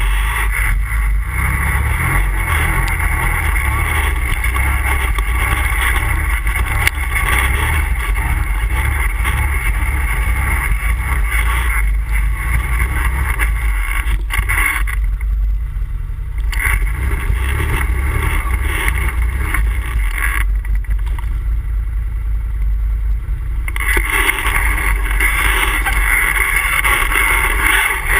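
An ATV engine running while riding, with a steady low rumble. The higher engine sound drops away twice, briefly about halfway through and again for about three seconds later on, then comes back.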